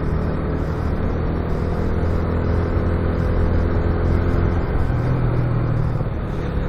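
Motorcycle engine running steadily under riding wind noise, with a change in the engine note about five seconds in.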